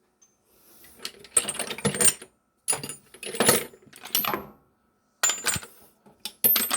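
Steel sockets and tools clinking and clattering together in a series of bursts, about six of them, with a bright metallic ring, as they are rummaged through in search of a large axle-nut socket.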